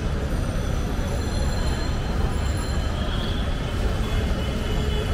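Steady street noise: a continuous low rumble of traffic with faint thin high tones above it.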